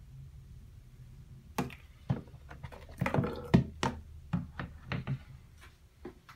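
Plastic soaking tub and steel knife being handled in a sink: a run of sharp knocks and clatters of plastic and metal against the basin, thickest in the middle, then a few lighter taps.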